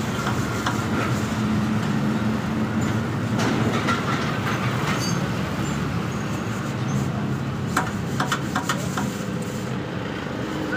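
Thin wire rods pushed and pulled through the tubes of a radiator core, clicking against the metal: a run of sharp clicks comes about three-quarters of the way in. Rodding out tubes like this clears a clogged core. A steady low machine hum runs underneath.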